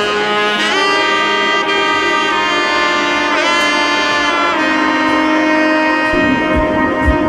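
Background music: a melody of long held notes that bend in pitch, with low drum beats coming in near the end.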